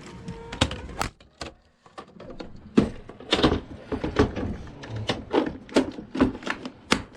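Crankbaits being handled and pushed into a holder: a string of irregular hard clicks and knocks, about a dozen, with the loudest a little under three seconds in and near the end.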